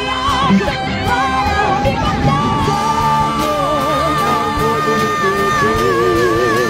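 Gospel song sung in Portuguese over band accompaniment. From about two seconds in, a voice holds one long high note with vibrato.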